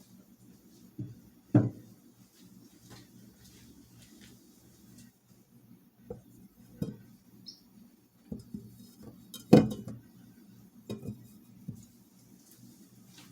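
Kitchenware being handled: scattered knocks and clinks of dishes, pots and utensils, with two louder knocks about one and a half seconds in and near ten seconds in, over a faint steady low hum.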